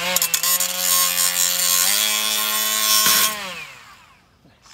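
Cordless angle grinder running and grinding against a steel plate, a steady motor whine under a harsh rasp; the pitch steps up about two seconds in, then the grinder is switched off just after three seconds and winds down.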